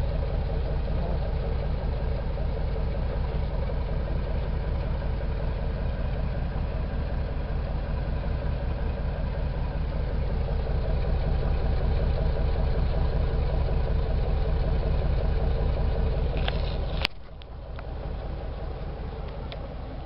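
Car engine idling, its exhaust running steadily at the tailpipe; the owner says the engine has a leaking head gasket, putting water into the exhaust. A click about three seconds from the end, after which the sound is much quieter.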